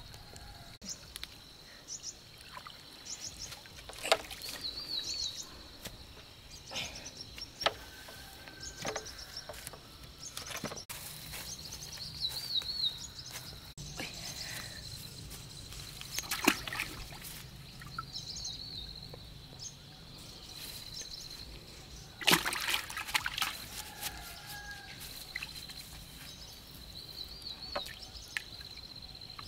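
Outdoor water sounds: sloshing and sudden splashes come and go, with a cluster of them about three-quarters of the way through. Short bird calls sound now and then over a steady high-pitched insect drone.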